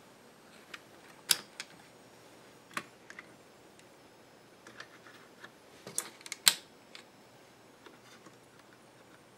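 Scattered light clicks and taps of hands handling the opened Epson HX-20's plastic case, circuit boards and ribbon cables. The two sharpest clicks come a little over a second in and about six and a half seconds in.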